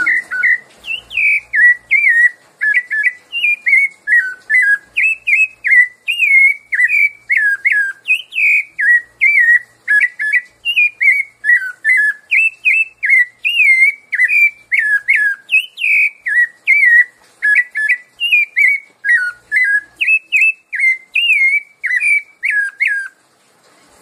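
Rufous-bellied thrush (sabiá-laranjeira) singing its 'piedade' song: a long run of clear whistled notes, each sliding up or down, about two a second. The song stops about a second before the end.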